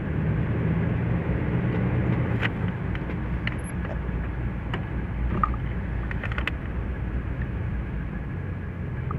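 1949 DeSoto's flathead straight-six engine running steadily at low speed as the car is driven slowly, heard from inside the cabin. A few light clicks sound partway through.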